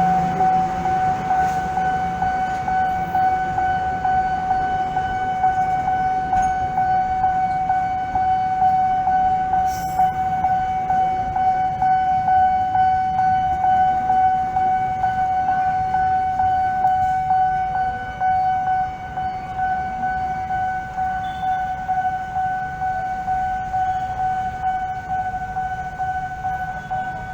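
A loud, steady single-pitched alarm tone, siren-like, sounding without a break and cutting off near the end.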